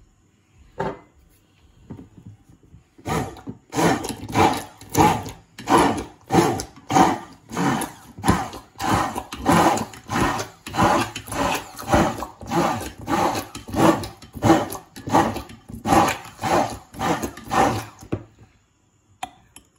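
Immersion blender blending mayonnaise in a glass bowl as the emulsion thickens, its sound surging and dropping about twice a second. It starts about three seconds in and stops near the end.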